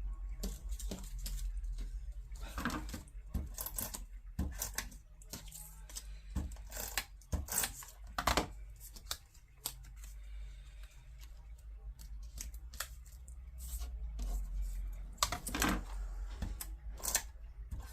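Paper and scrapbooking supplies being handled at a desk: irregular rustles, small clicks and taps, with a steady low hum underneath.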